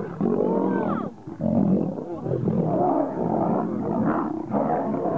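Lions fighting, roaring over and over with brief breaks.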